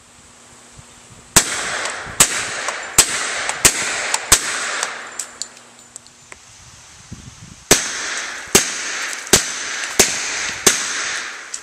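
SIG P220 .45 ACP pistol firing through an SWR HEMS 2 suppressor: two strings of five shots, about 0.7 s apart, with a pause of about three seconds between the strings. Each shot is a sharp crack followed by a short echo.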